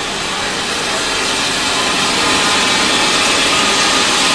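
Steady hiss of steam from a tinplate model steam locomotive, growing a little louder.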